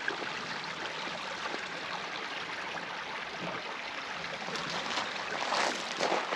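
The Whitewater River running high after a flood, a steady rush of water. Two louder scuffs come near the end.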